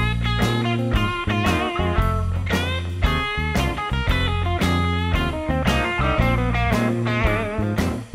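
Background music: guitar-led rock tune over bass with a steady beat.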